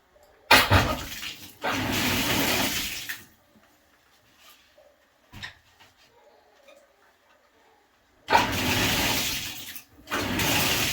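Bathroom sink faucet turned on and off, water running hard into the basin in two runs of about three seconds each, with a short pause between. It is a leak test of the sink's connections.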